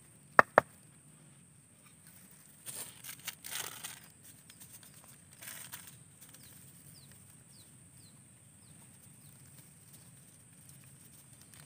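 Two sharp clicks close together near the start, then scattered rustling and brushing, over a steady high-pitched insect drone; a few short falling chirps come in the middle.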